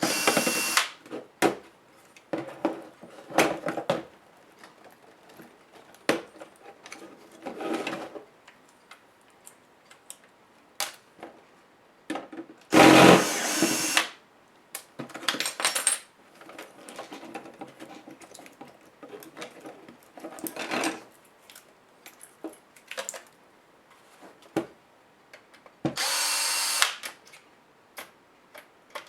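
Small electric screwdriver whirring in short bursts of about a second each while backing out laptop screws, the loudest burst about halfway through, with scattered clicks and small knocks of handling in between.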